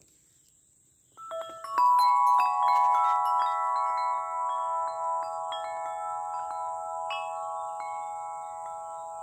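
Large tuned tubular wind chimes set swinging by hand and struck by their clapper, starting about a second in: a quick cluster of strikes at several pitches, then sparser strikes, with the long ringing tones overlapping and slowly fading.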